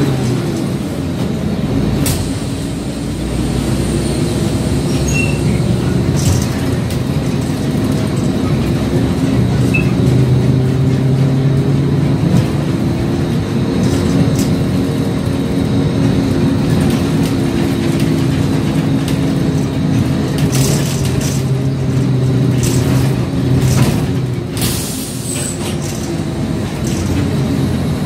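City bus engine heard from inside the cabin while the bus is moving, its pitch rising and falling as it speeds up and slows. There are a few short hisses and rattles near the end.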